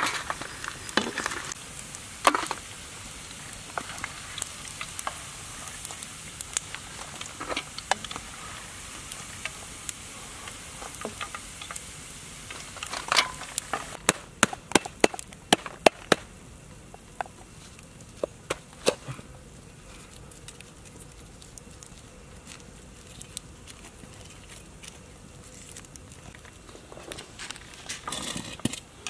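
Small clicks and taps of fried meat pieces and a utensil against a metal serving tray, with a quick run of sharp taps a little past the middle, over a steady high hiss.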